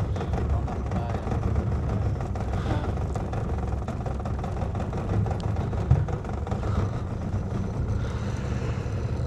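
Boat motor running steadily at idle, a constant low rumble.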